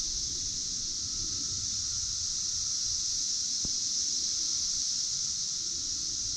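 Steady high-pitched drone of an insect chorus, over a low uneven wind rumble on the microphone, with one faint click a little past halfway.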